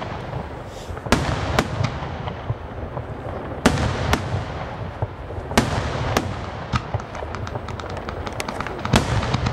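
Aerial firework shells bursting in a series of sharp bangs a second or two apart over a low continuous rumble. A quicker run of smaller cracks follows in the second half.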